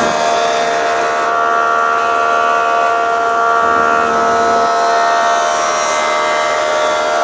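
Foley Belsaw planer molder, driven by a 5 HP single-phase electric motor, running at speed with a steady whine made of several pitches. A heavier low rumble stops right at the start, and a higher tone joins about a second in.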